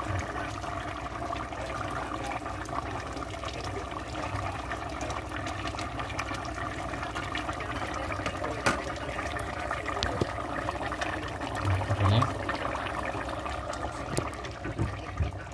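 Ginataang papaya, a coconut-milk stew with papaya, fish and chilies, bubbling steadily at a boil in a metal pot, with a few low bumps in the second half.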